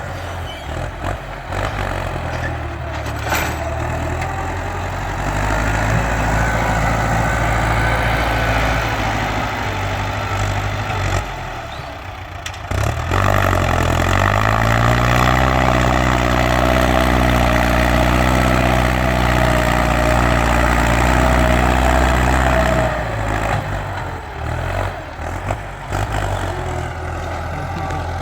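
Ford farm tractor engine running loud, its revs climbing about halfway through and held high for several seconds before dropping back toward idle near the end.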